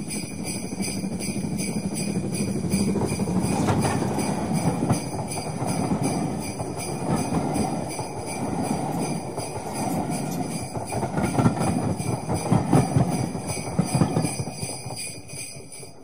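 Jingle bells shaking steadily over a low rumbling noise, fading out near the end.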